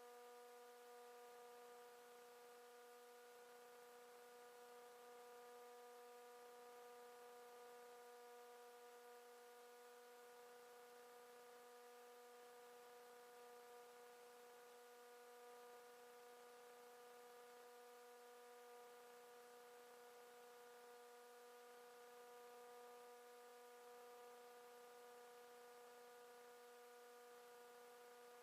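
Near silence: a faint, steady electrical hum of several evenly spaced tones over hiss, unchanging throughout.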